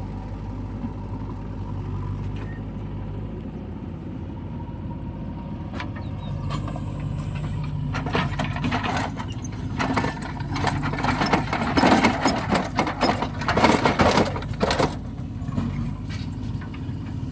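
Backhoe loader's diesel engine running steadily, with a loud burst of clattering and rattling impacts from about halfway through that lasts several seconds as the load of earth drops into the tractor trailer.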